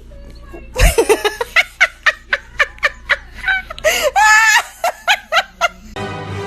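A person laughing hard in a rapid run of short, high-pitched bursts. Music starts near the end.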